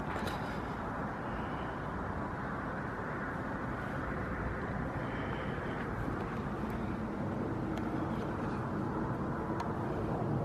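Steady outdoor background noise: a constant low rush with no distinct event, with a few faint brief high tones and ticks over it.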